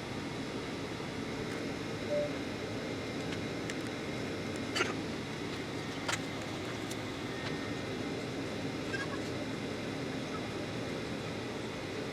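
Steady hum inside a Boeing 737 airliner cabin on the ground before takeoff, with a couple of sharp clicks about five and six seconds in.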